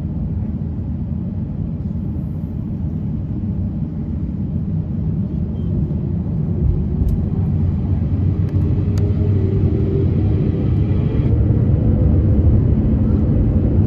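Airbus A350-900's Rolls-Royce Trent XWB turbofans spooling up for the take-off roll, heard from the cabin over the wing: a low rumble that grows steadily louder, with a faint tone rising in pitch in the second half.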